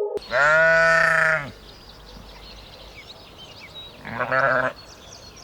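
Bleating livestock: one long bleat just after the start, then a shorter bleat about four seconds in.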